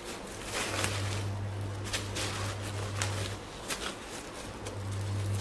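Seed packets being handled and rummaged through, with intermittent rustling and a few sharp crackles, over a low steady hum.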